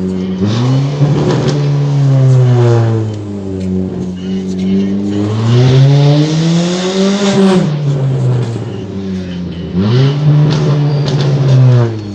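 Stage 2 tuned Fiat Bravo 1.8 engine revving up hard three times, its pitch climbing, holding and falling back each time.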